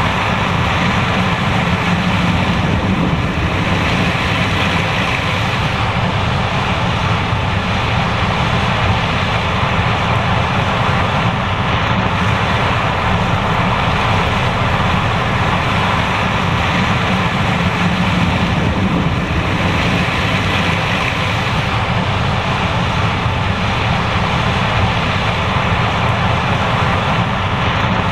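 John Deere S780 combine running steadily while harvesting corn: the diesel engine and threshing machinery make a constant, unbroken mechanical noise.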